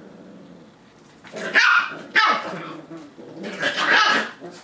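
Eight-week-old Lab and Australian Cattle Dog mix puppies barking in play: a few short, high barks begin a little over a second in, and a longer run of barks comes near the end.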